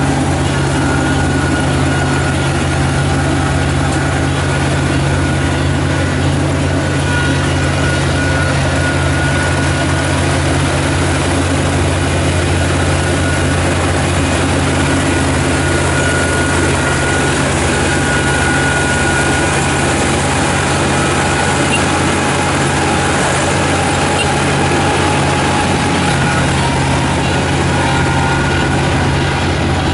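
Kubota ER447 combine harvester's diesel engine and threshing machinery running steadily with a constant low hum.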